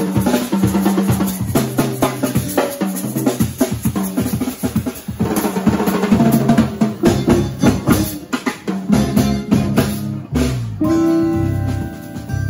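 Live band playing an instrumental piece on drum kit, fretless electric bass and guitar. The drums stop a little past ten seconds in, and sustained chords ring on.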